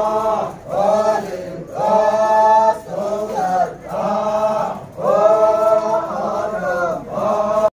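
A group of men chanting in unison in a traditional Naga dance chant, in repeated phrases of about a second that fall in pitch at their ends. The chant cuts off abruptly near the end.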